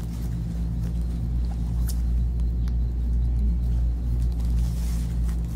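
Steady low droning hum throughout, with a few light rustles and clicks of fabric, plastic wrapping and a plastic hanger being handled.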